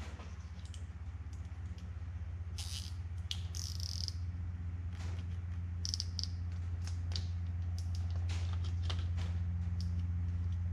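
Plastic zip ties being threaded and pulled snug around an outboard motor's wiring harness: scattered light clicks and short scratchy rasps, over a steady low hum.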